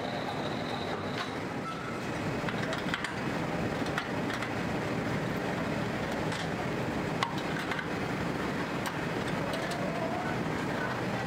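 Steady machinery din of a rotational-moulding tank factory, with scattered sharp metallic clinks of spanners working the bolts on a tank mould's flange. A thin high tone sounds briefly in the first second.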